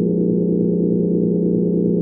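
Steady, soft low hum of the kind heard in an underground bunker, made of several held deep tones with a slight even wavering and no breaks.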